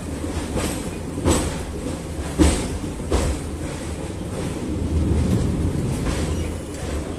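Krishna Express passenger train running with a steady low rumble, and a few sharp clacks of the wheels passing over rail joints in the first half.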